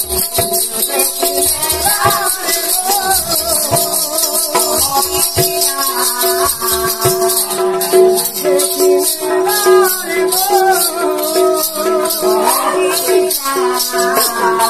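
Live folk music: small brass hand cymbals clashing in a fast, even rhythm with a barrel drum, over a steady held note and men's singing.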